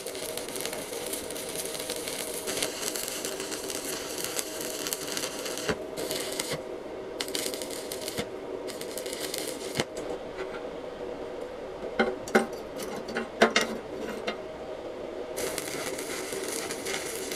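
Stick (MMA) welding arc crackling and sizzling on steel in several runs, breaking off and restarting a few times. While the arc is off, about two-thirds of the way through, come a few sharp clicks and taps. A steady hum runs underneath.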